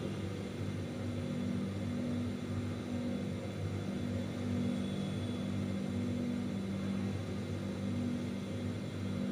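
A steady low hum, with no clear events on top of it.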